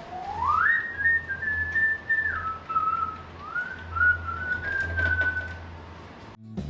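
A person whistling: a quick upward glide, then a string of held notes stepping up and down, ending about a second before the close. A steady low hum runs underneath.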